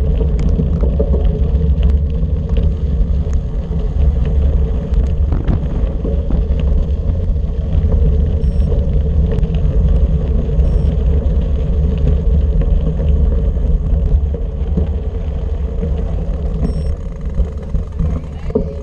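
Wind rumbling on the microphone of a bicycle-mounted action camera while riding, with tyres rolling over gravel. The sound is steady, with small crunches and ticks from the loose surface.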